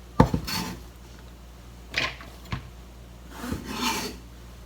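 Minced onion being scraped off a wooden cutting board into a bowl: a sharp knock just after the start, then a few short scrapes.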